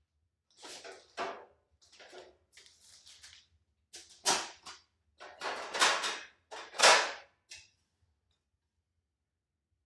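Plastic wrapping rustling and crinkling as new replacement car body panels are handled and unwrapped, in a string of bursts that grow louder and then stop about three-quarters of the way through.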